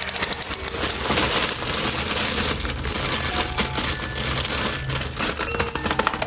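Plastic packaging crinkling and crackling as it is handled and torn open, with many irregular clicks and snaps.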